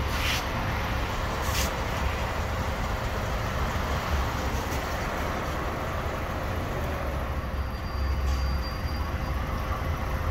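Fuel pump dispensing diesel: a steady hum over a low, steady rumble, with two short hisses in the first two seconds.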